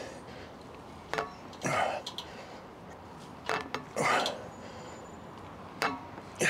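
A man breathing hard through heavy rows on an outdoor chest-supported row machine. There are three repetitions about two and a half seconds apart, each a sharp clack from the machine followed by a forceful exhale.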